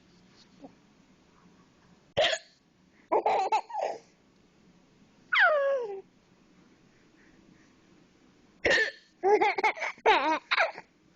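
A woman's hiccups, two sharp sudden ones about two seconds in and near nine seconds, with a baby laughing and squealing in short high-pitched bursts between and after them, the laughter coming in a quick run just after the second hiccup.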